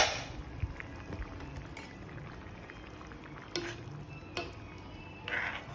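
A sharp metal clank of cookware right at the start, then chana dal cooking in water in a covered kadai, a low steady simmer with a few light clinks.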